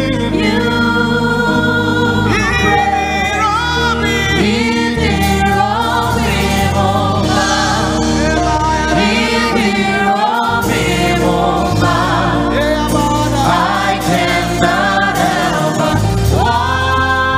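Live gospel praise and worship music: a lead singer and backing choir singing held, bending vocal lines over a band with a steady bass line.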